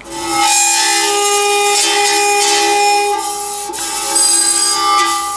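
Loud tone from a cymatics setup, a steady chord of several clashing pitches over a gritty rasping buzz, starting suddenly. The pitches shift slightly about three seconds in.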